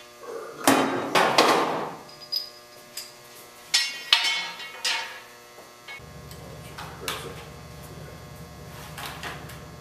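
Steel engine hoist parts clanking against each other and the truck bed as they are handled: a run of sharp metallic knocks with ringing over the first five seconds, then a few lighter knocks. About six seconds in a steady low electrical hum starts.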